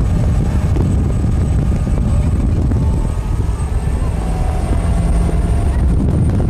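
2005 LLY Duramax 6.6-litre V8 turbodiesel in a performance boat running steadily at part-throttle cruise, on plane at speed. The engine drone is loud and even, with a faint thin high whine above it.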